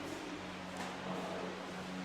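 Quiet, steady background hiss with a faint low hum: room tone.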